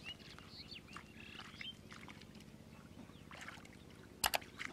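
Hand working through shallow muddy water, with faint sloshing and small splashes, under short high chirps. Near the end come two sharp clicks in quick succession, the mouse-click sound of a subscribe-button animation.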